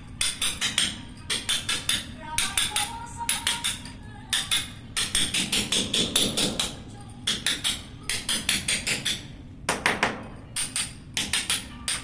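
Hammer striking a cold chisel to chip the concrete floor around a toilet drain outlet. The blows come in quick runs of several strikes with short pauses between runs.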